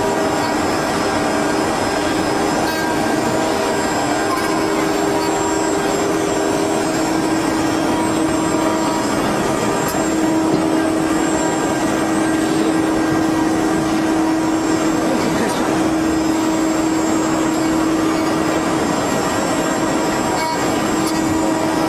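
Multi-spindle CNC wood carving machine running: the spindle motors whine steadily over the continuous rasp of the cutters carving the wooden workpieces.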